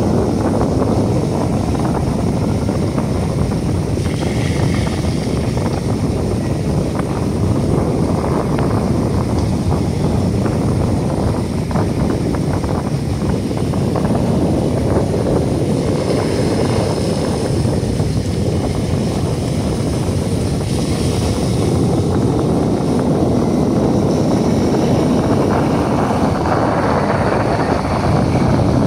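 Wind buffeting the microphone on a ship's open deck: a steady, loud low rumble with no break.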